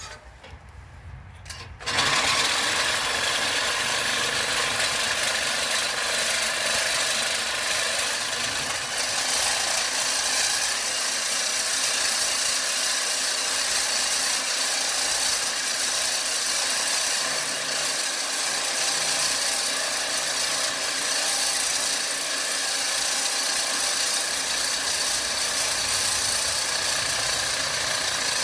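A power tool starts about two seconds in and runs steadily and loudly while a fan motor is taken off an AC unit's fan casing for scrap.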